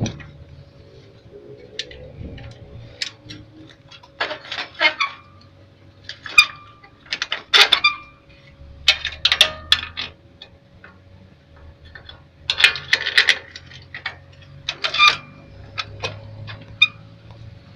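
Steel pin and chain clinking and rattling against a rusty steel frame, in short clusters of knocks several times over, some ringing briefly.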